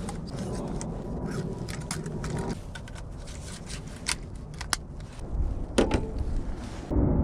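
Scattered small clicks and short scrapes of a camera drone being handled and readied, over a low steady rumble. A louder low sound starts near the end.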